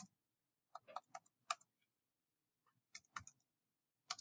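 Computer keyboard typing, faint: a handful of keystrokes about a second in, a few more about three seconds in, and one more near the end.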